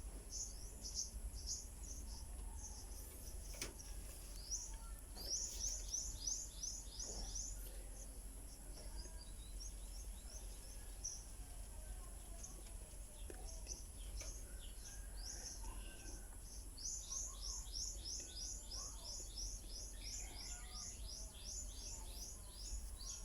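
A bird calling in runs of short, high chirps, about three or four a second: a short run a few seconds in and a longer one near the end.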